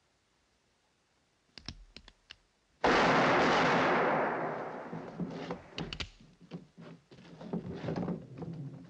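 Film sound effects of a saloon gunfight: a few small clicks, then a single loud revolver shot about three seconds in that rings out and fades over a second or two, followed by scattered knocks and clatter.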